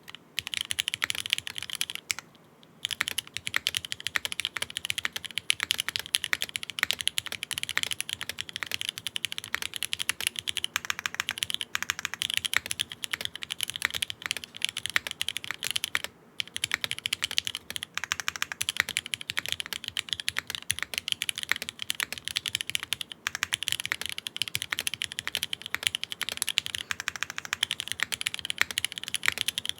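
Fast, steady typing on a QK60 mechanical keyboard with Cherry MX Black Hyperglide linear switches, lubed and filmed, on an aluminium plate with no foam, giving a clacky key sound. Typing stops briefly a couple of seconds in and again about halfway through.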